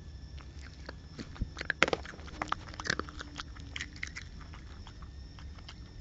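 A small animal biting and chewing right at the camera: a run of close, crisp clicks and crunches, busiest between about one and a half and three seconds in.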